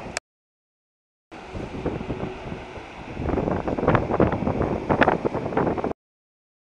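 Wind buffeting the camera microphone, growing louder and rougher in the second half, with the sound cutting out completely for about a second near the start and again near the end.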